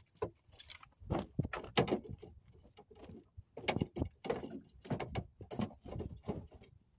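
Fishing gear being handled in a boat: a run of irregular sharp clicks, knocks and light rattles, with a short lull about halfway through.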